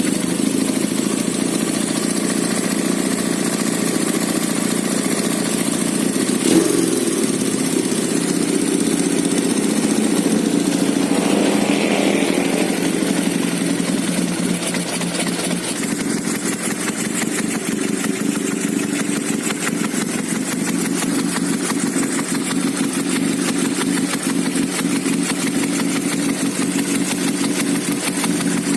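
KZ200-based two-cylinder 500cc motorcycle engine running steadily, with a brief sharp knock about six and a half seconds in.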